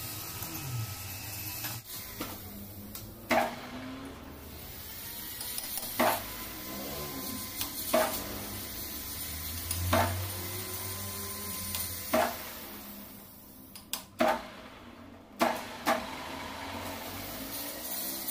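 Sharp metallic knocks at a metal lathe's three-jaw chuck, about one every two seconds, as a piston blank is set and clamped in it. There is a brief low hum around the middle, when the chuck spins.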